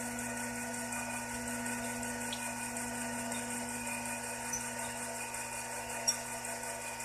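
Small CNC lathe's spindle running at a steady speed, with an even motor hum and whine. A single light click about six seconds in.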